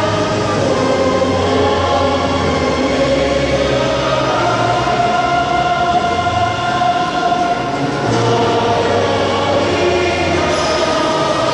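Choral music: voices singing long held notes together at a steady, fairly loud level.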